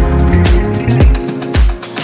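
Background music: upbeat instrumental with a steady drum beat and bass.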